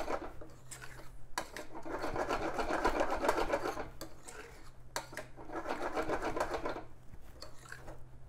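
Spoon stirring thick, very hot squid-ink risotto in a skillet: three spells of rapid rubbing and squelching, a second or two each, with a low steady hum beneath.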